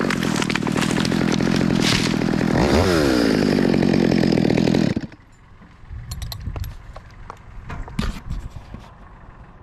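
Stihl chainsaw running at high speed, its pitch dipping and recovering once, then shut off abruptly about halfway through. Afterwards a quieter low rumble with scattered light clicks and knocks.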